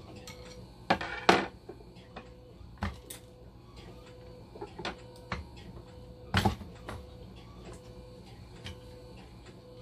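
Clicks and knocks of a screwdriver and a dialysis machine's metal blood pump module being handled on a desk. There is a sharp clatter about a second in and another knock past the middle, with lighter clicks between.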